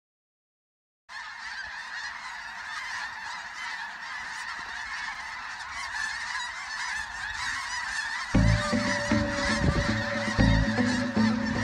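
A large flock of snow geese calling overhead: a dense, continuous din of many overlapping high-pitched honks that starts abruptly about a second in. Background music with a steady beat comes in under the geese about eight seconds in.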